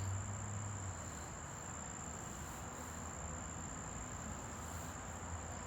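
A steady high-pitched tone held on one pitch over a low hum and a faint even hiss, with no distinct drawing strokes standing out.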